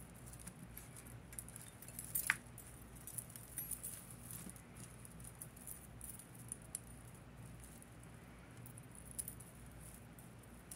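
Faint light clicking and clinking of glass-bead necklaces and thin metal chains being handled and untangled, with one sharper clink about two seconds in. A faint steady low hum lies underneath.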